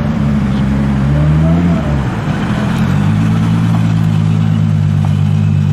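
A modified Datsun Z's engine as the car rolls slowly away: its note rises gently for about two seconds, drops off, then settles into a steady, even idle.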